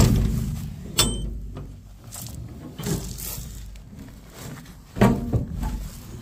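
A few sharp knocks or clatters: one right at the start, another about a second later and a third about five seconds in, with a low rumble between them.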